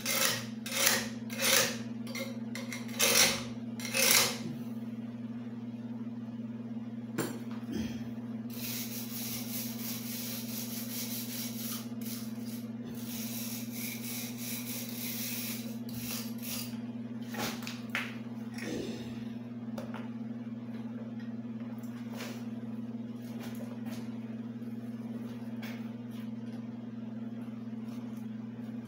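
About five hammer blows on the compressor pulley, roughly one a second, in the first four seconds, then stick welding on the pulley hisses and crackles for about seven seconds, followed by a few scattered knocks. A steady electrical hum runs underneath.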